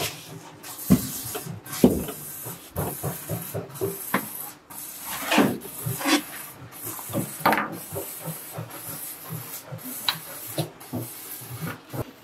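A metal bar and scraper scraping and chipping set concrete off the edges of a steel block mould: irregular scrapes, with knocks and clacks between them.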